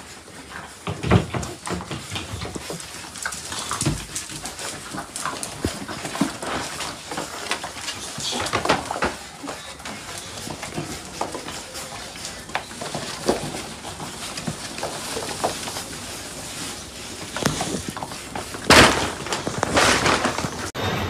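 A litter of puppies making short dog noises, yelps and whines, amid many scattered short knocks and clicks; a louder burst of noise comes near the end.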